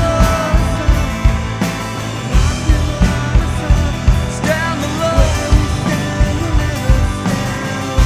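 Rock band playing live on stage: a steady drum beat under amplified instruments, with a melodic line rising and falling over it in two phrases.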